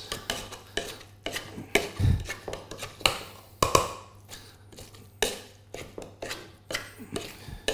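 Potato masher knocking and scraping against a stainless steel saucepan as chickpeas and carrots are mashed by hand: irregular clanks, about two a second.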